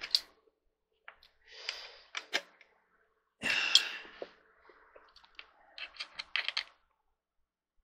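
Metal hand tools clicking and scraping against the steel seat mechanism and bolts of an office/gaming chair as the bolts are checked for tightness. The sound comes in short, irregular clicks and scrapes, loudest about three and a half seconds in, with a quick run of clicks around six seconds.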